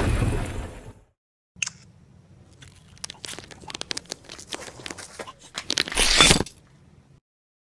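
Gravel crunching under movement on a driveway: scattered crunches and scrapes, with one louder scrunch about six seconds in. At the very start a loud rumble fades out.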